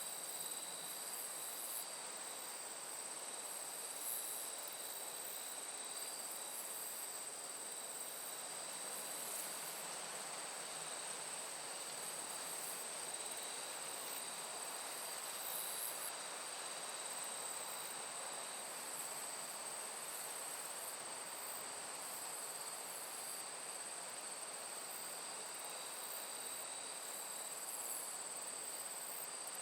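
Night insects in a late-summer corn field: crickets keep up a steady high-pitched trill, with fainter lower trills and a fast pulsing chirr above them, over a soft even hiss.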